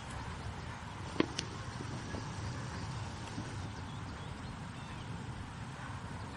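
Muffled hoofbeats of a horse trotting on arena sand, with a steady low rumble under them and a sharp click about a second in.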